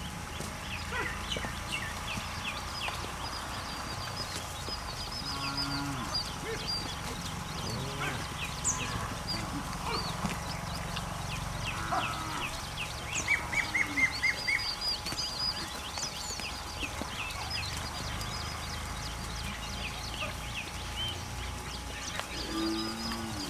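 Farm animals calling briefly, once about five seconds in and again near the end, over steady chirping birdsong.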